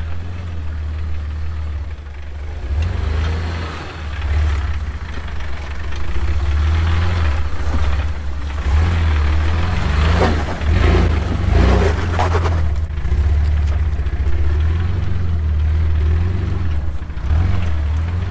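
Jeep Wrangler's engine running low and steady while crawling over rock, its rumble swelling and easing with the throttle. A rougher, crackling stretch comes around the middle.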